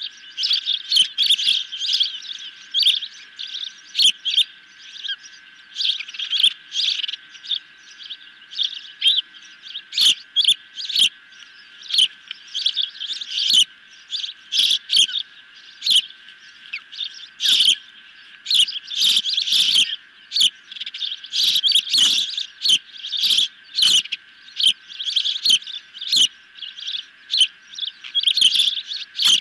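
Ospreys on the nest calling, a long string of short, sharp, high chirps repeated in quick succession.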